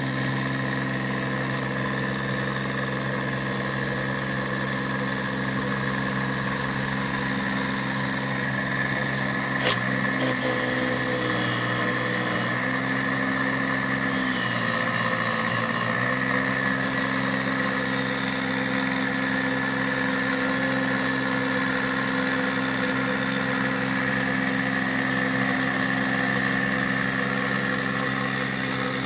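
Universal motor rewired as a pulse motor, running steadily: an even electric hum with a high whine above it. A sharp click comes about ten seconds in, and the pitch of the hum wavers for several seconds after it before settling again.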